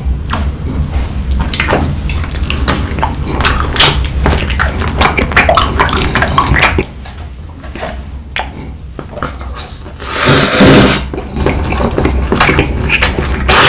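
Close-miked eating sounds: wet smacking bites and chewing of a jelly, then a long noodle slurp about ten seconds in, with more wet clicks after it.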